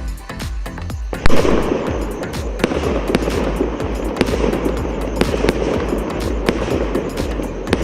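A 72-shot, 1.2-inch fireworks cake firing. It starts with a loud bang about a second in, then keeps up a rapid, irregular string of launches and bursts over background music.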